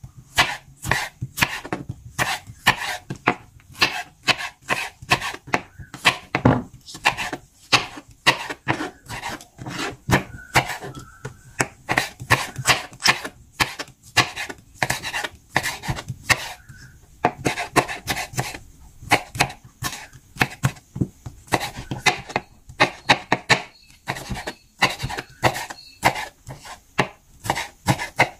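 Kitchen knife chopping a tomato on a wooden cutting board: a continuous run of short knocks, several a second, slightly uneven in rhythm.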